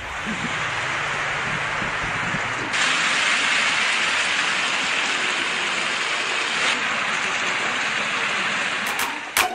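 Steady hiss of traffic on a wet, slushy street, getting louder about three seconds in. Near the end a few sharp electronic beats break in.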